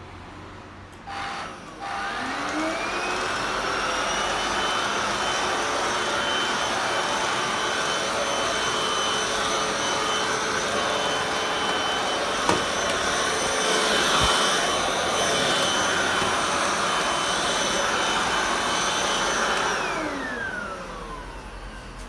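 Hoover FD22G cordless stick vacuum switched on with a click, its motor whine rising to full speed over about two seconds, then running steadily with a rushing airflow as the floor head is pushed over a hard floor. A brief knock comes midway. Near the end it is switched off and the whine falls as the motor spins down.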